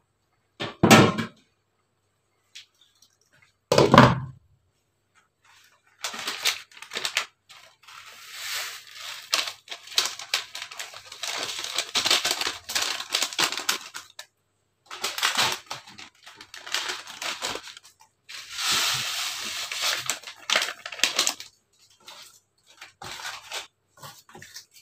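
Two heavy thumps a few seconds apart, then a packet being torn, crinkled and shaken out over a pot, in irregular rustling bursts with short pauses.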